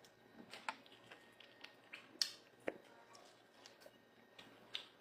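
A person chewing food close to the microphone: a run of faint, irregular wet clicks and smacks, the loudest a little over two seconds in.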